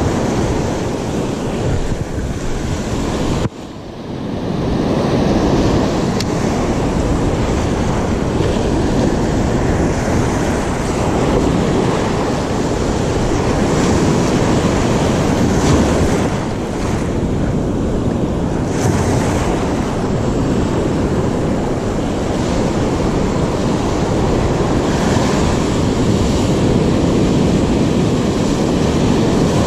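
Ocean surf breaking and washing around the shallows, a steady roar of white water, with wind buffeting the microphone.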